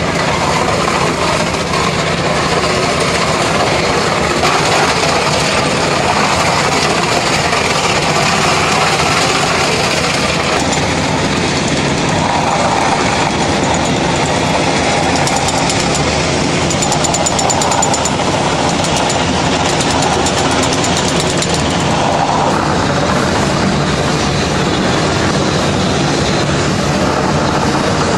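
Hydrodemolition robot's high-pressure water jet blasting concrete off a bridge deck: a loud, steady rushing noise with a fast, even pulsing texture, unchanging throughout.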